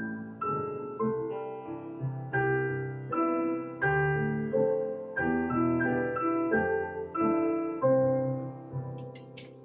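Piano music: a run of struck notes and chords, ending on a louder chord about eight seconds in that rings out and fades away.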